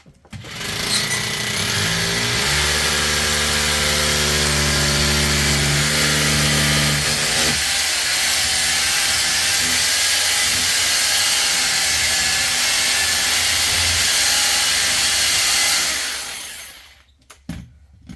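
Electric power tool running continuously for about fifteen seconds, starting about half a second in and stopping shortly before the end. A steady pitched hum runs under the noise in the first few seconds, then the sound turns rougher.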